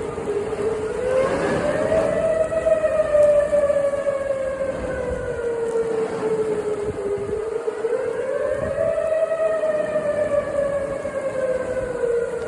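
Outdoor storm warning siren wailing, its pitch slowly rising and falling in a cycle of about seven seconds.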